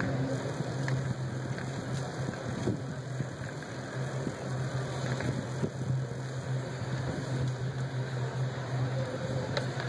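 Outdoor background noise with a steady low hum beneath it and a few faint clicks.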